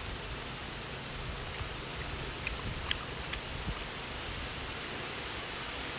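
Steady outdoor background hiss, with four short, sharp clicks in quick succession a little before halfway through.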